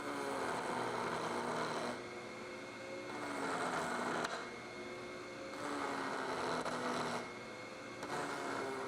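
Router table running a flush-trim bit on the wooden box's bottom ring: a steady motor whine with noisy cutting, its pitch sagging slightly and recovering as the wood is fed. It grows louder and softer every second or two.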